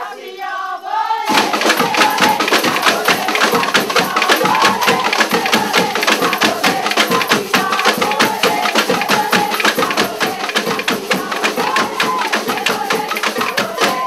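Carnival street-band percussion playing a fast, dense beat, with voices singing along over it. The beat starts about a second in.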